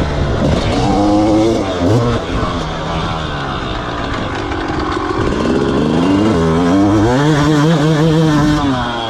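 250cc two-stroke motocross bike being ridden hard, its engine revving up and down with throttle and gear changes. The pitch climbs and drops several times, with a long high-revving pull late on that falls away near the end.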